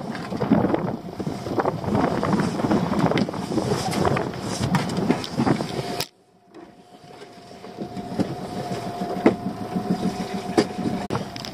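Knocking and rattling on a small fishing boat for about six seconds, then a sudden break. After it, a boat's engine runs with a steady hum and occasional knocks.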